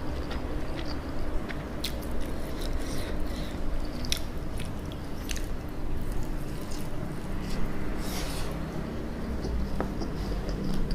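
Biting into and chewing a sauce-glazed fried chicken drumstick close to the microphone. Sharp crunches of the crispy coating are scattered throughout.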